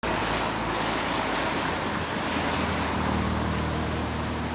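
Traffic passing on a wet road: steady tyre hiss with engine noise, and a van's engine drone strongest in the second half.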